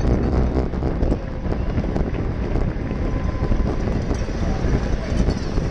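Wind rushing over a bike-mounted GoPro microphone at about 25 mph, with a steady low rumble of road and bike noise and scattered small rattles and knocks.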